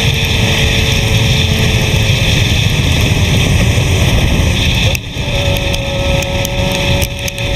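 Suzuki sport bike at road speed as heard from the rider's seat: a steady engine note under heavy wind rush on the microphone. About five seconds in the wind and rumble drop off sharply and a steady engine hum stands out more clearly.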